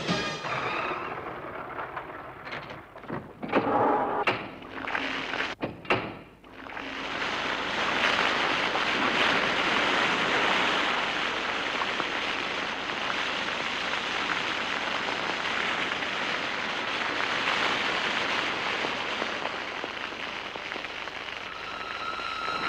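A few knocks and clatters, then from about seven seconds a steady hissing spray of liquid pouring down over a car, like heavy rain.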